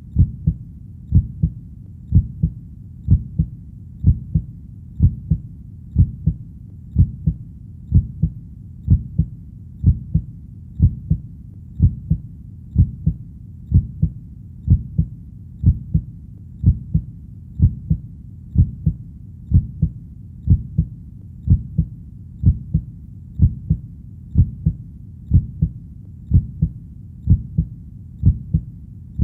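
Heartbeat beating steadily at about one beat a second, each beat a low lub-dub double pulse.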